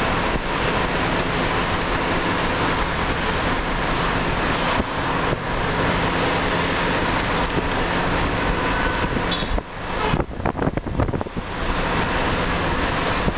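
Road and traffic noise heard from inside a moving car: a steady dense rush with a low hum. About ten seconds in, the noise turns choppy with quick dips for a second or so, then steadies again.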